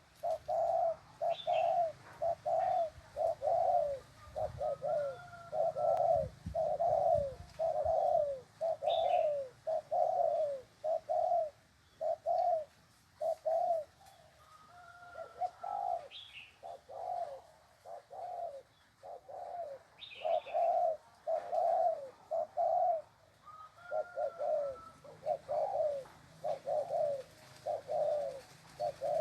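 Spotted dove giving its bowing coo: runs of short, arched coos, about two a second, broken by brief pauses. A higher gliding note comes in now and then.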